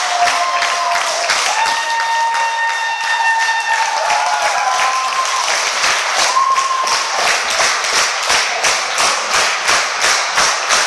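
Crowd applauding, the clapping falling into a steady rhythm in unison, about two to three claps a second, in the second half.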